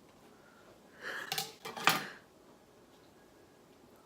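A utensil clinking against a dish: a brief rustle, then two sharp clinks between one and two seconds in, the second the loudest.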